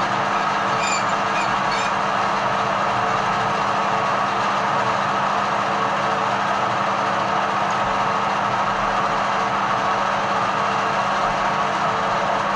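Edgwick metal lathe running steadily, its motor and gearing giving a constant hum, with a few faint high metallic clinks about a second in.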